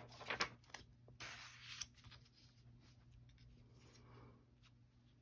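Faint handling of paper and stamping supplies on a desk: a few soft taps and rustles in the first two seconds, then near silence over a steady low hum.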